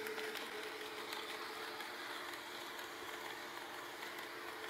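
HO-gauge model electric car running on its Tenshodo power-truck motor bogie: a steady motor whine with wheel and rail noise and faint light clicks.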